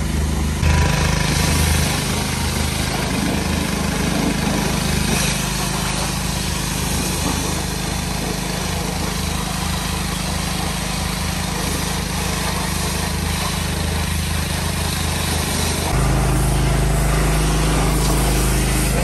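Pressure washer running steadily, its motor humming under the hiss of the water jet spraying the truck's metalwork. About sixteen seconds in the low hum becomes louder.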